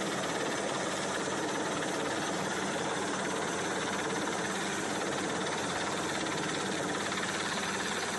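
Coast Guard rescue helicopter hovering low overhead, its rotor and engine making a steady, even noise.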